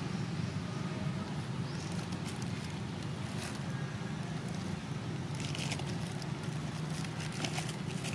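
A clear plastic produce bag crinkling and rustling in bursts as hands dig through it and pull out fruit, busiest in the second half. Under it runs a steady low hum.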